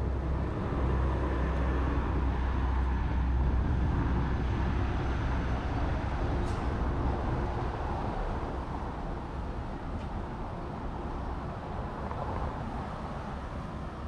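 Wind rumbling on the microphone over the steady noise of road traffic on the street alongside, heaviest in the first half and easing a little toward the end.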